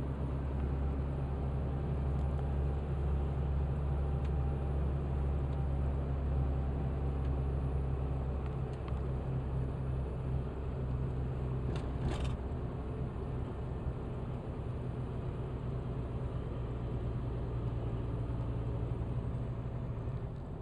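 Car engine and road noise while driving slowly and carefully on a snowy road: a steady low rumble, with one short click about twelve seconds in.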